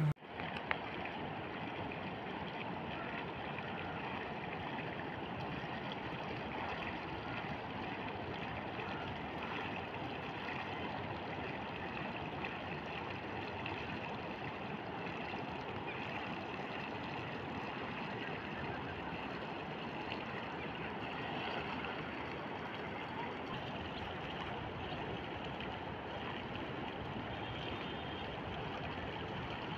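Steady rush of a shallow river flowing past the microphone.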